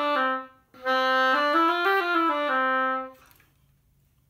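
Oboe played on a reed that is hard to get to respond: two short stepwise phrases, the second rising and falling, then the notes stop about three seconds in. The reed only plays loud, because it has to be tongued hard to start at all.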